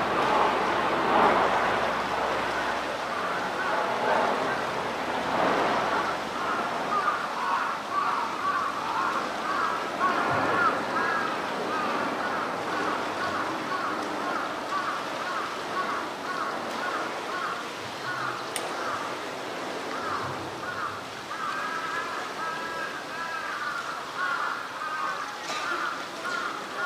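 Outdoor ambience of a steady rushing noise like flowing water, with faint distant voices coming and going.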